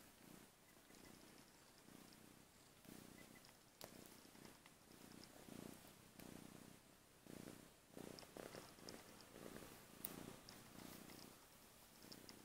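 Young ginger long-haired kitten purring faintly, close up, a low rumble that swells and fades with each breath about once a second.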